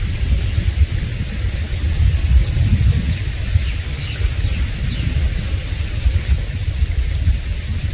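Loud, unsteady low rumble, like wind buffeting the microphone, with faint high bird chirps over it.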